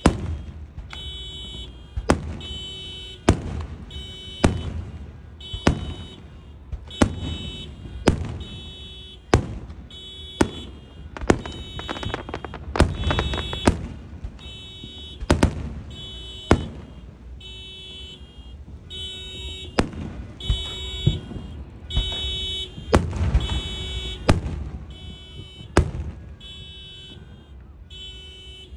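A car alarm beeping over and over, about one beep a second, set off by the noise of the fireworks. Sharp firework bangs go off about once a second among the beeps.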